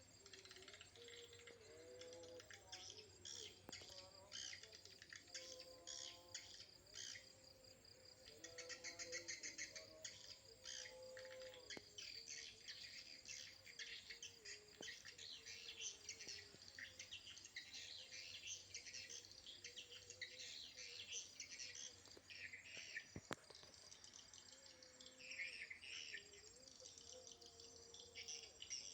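Swiftlets twittering: many rapid, high-pitched chirps and trills overlapping continuously, with a fainter lower-pitched call now and then.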